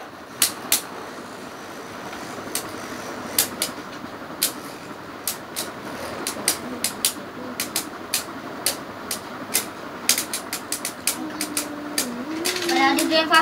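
Two Beyblade spinning tops whirring in a plastic stadium, with sharp clicks as they strike each other and the stadium wall. The clicks come more often after about ten seconds in.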